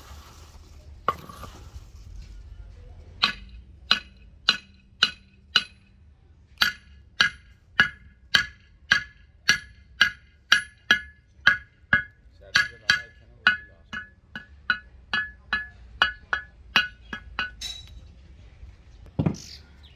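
Hand hammer tapping a freshly sand-cast metal brake drum, a steady run of clinks that each ring briefly with a clear metallic tone, about two to three a second, to loosen the casting from the mould sand. A single duller thump comes near the end.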